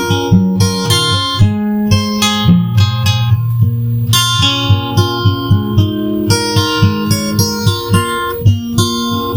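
Acoustic guitar strummed in a steady rhythm, about three strokes a second, playing an instrumental passage of a song with no vocals.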